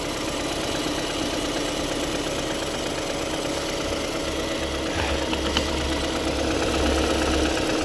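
Ford 1.5L EcoBoost turbocharged four-cylinder engine idling steadily, with a deeper drone coming in about halfway. The engine has no coolant, is overheating, and is logging a cylinder 2 misfire, which the mechanic takes for a bad head gasket.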